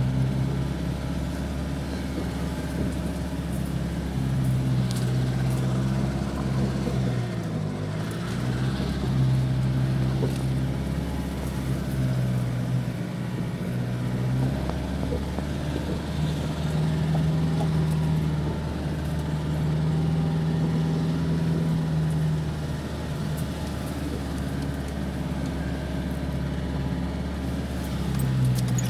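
The 2006 Nissan Navara D40's 2.5 dCi four-cylinder turbodiesel is running steadily at low revs in four-wheel-drive low range. Its note dips briefly about eight seconds in and rises a little through the middle as the load changes.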